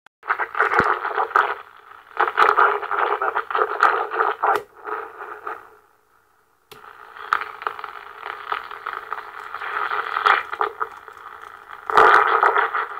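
President Lincoln CB radio's speaker giving crackly, chopped-up noisy audio as it is tuned, cutting out briefly past the middle. This is the intermittent SSB fault the owner is trying to diagnose.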